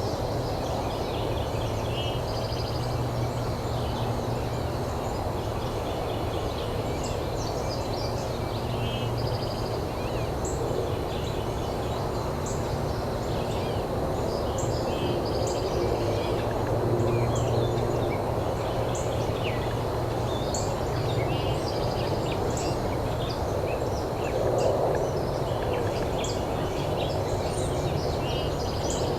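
Wild turkey gobbler gobbling several times over a steady outdoor noise, with small songbirds chirping throughout.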